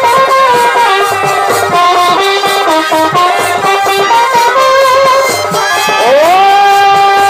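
Traditional music: a wavering melody line over a regular drum beat. About six seconds in, the melody slides up into a long held note.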